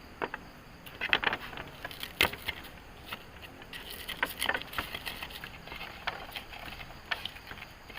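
Irregular light clicks, clinks and knocks of camp cooking gear being handled, in uneven clusters.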